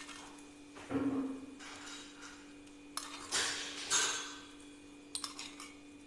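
A metal spoon scraping and clinking against a small steel pan and a plate as a tempering is spooned out and drizzled: several separate clinks and scrapes, the loudest about a second in, with more a little after the midpoint and near the end.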